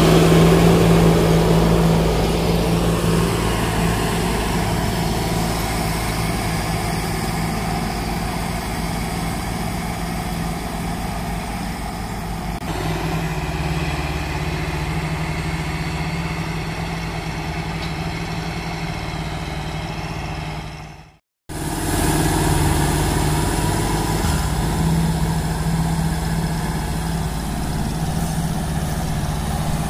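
Diesel farm tractor engines running steadily, loudest in the first couple of seconds and then a little quieter. The sound cuts out completely for a split second about two-thirds of the way through.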